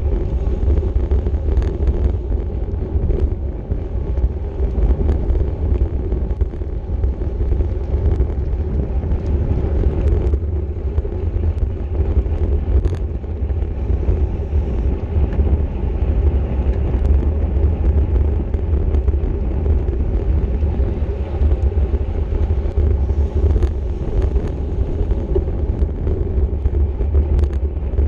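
Steady rumble of wind buffeting the microphone of a camera riding on a racing bicycle at speed, mixed with road and tyre noise.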